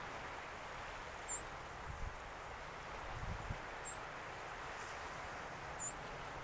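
Steady wash of choppy harbour water and wind, with three short, very high, thin chirps about two seconds apart from a small bird.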